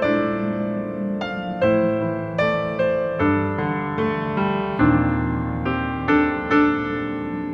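Background piano music, notes struck about twice a second and left to ring.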